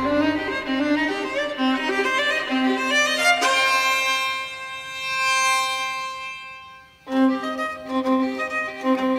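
Background music led by a bowed-string melody. A held chord fades almost to silence about seven seconds in, then the music starts again.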